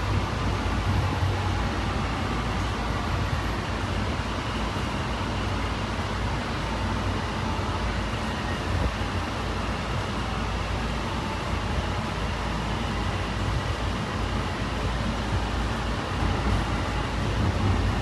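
Honolulu Skyline metro train running steadily between stations, heard from inside the lead car: a steady low running noise of wheels on rail with a faint whine over it.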